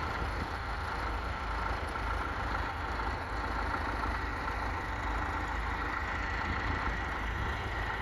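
Massey Ferguson 35 tractor engine running steadily.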